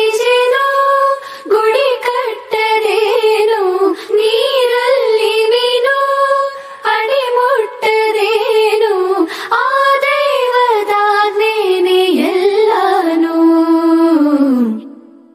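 A child singing solo: one high voice carrying a melody in phrases with held notes. It ends on a long note that slides down and fades away near the end.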